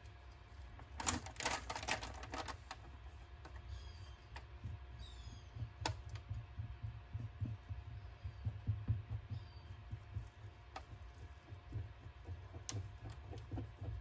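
Small clicks and taps with soft rubbing as a fingertip and paintbrush press a glued paper napkin onto a resin mold, with a flurry of clicks a second or two in and a few faint squeaks, over an uneven low rumble.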